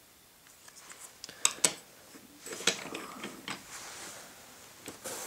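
Handling noise of wooden toy trains: a few sharp clicks and knocks, two close together about a second and a half in, with light rustling between them.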